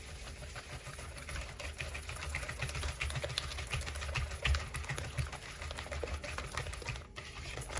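A whisk beating eggs and sugar by hand in a plastic bowl: a fast, steady run of clicks and scrapes, broken briefly near the end.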